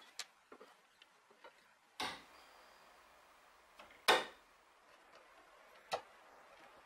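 A bench chisel cutting down by hand into an oak rail at a knife line: three sharp, short cracks about two seconds apart, the middle one loudest, as it pares out the waste for a half-lap joint. A few faint clicks of tool handling come first.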